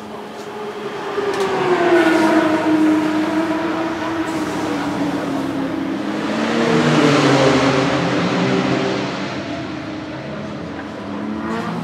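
Alfa Romeo 155 V6 Ti DTM's 2.5-litre V6 racing engine revving during its warm-up, in slow swells. The pitch falls away after a rev about two seconds in, rises again around seven seconds, sinks, and climbs once more near the end.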